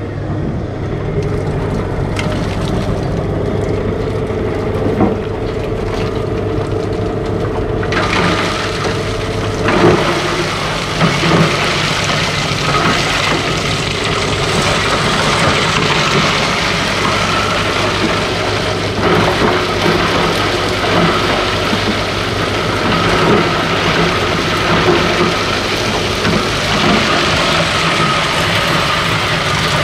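Electric cow-dung powdering machine running with a steady motor hum. About eight seconds in, a loud grinding rattle joins as dried cow dung is fed in and crushed, with a few knocks from lumps in the drum.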